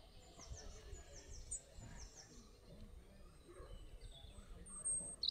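Birds calling: a string of short, high, falling chirps, then a sharper, louder chirp near the end.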